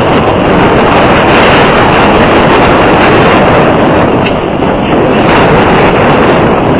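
Strong wind buffeting the microphone: a loud, steady rushing noise with no distinct tones.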